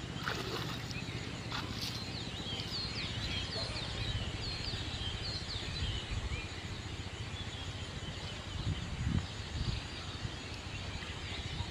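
Small birds chirping in many quick, high, short calls over a steady rural background, with a few low thumps later on.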